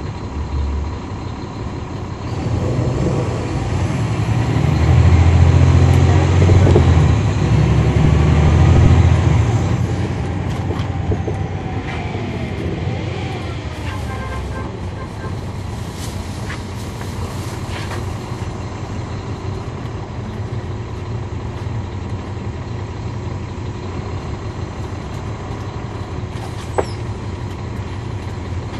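Caterpillar C13 diesel engine and ZF automatic transmission of a NABI 40-foot transit bus, heard from inside the cabin at the rear. The engine pulls hard and loud from a couple of seconds in until about ten seconds in, with its pitch sliding as it goes, then settles to a steadier, quieter drone. A single sharp click comes near the end.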